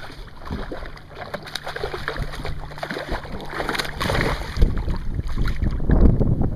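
Hooked largemouth bass splashing and thrashing at the surface of the water as it is reeled in, the splashes getting louder and more frequent about four seconds in. A low steady hum runs underneath.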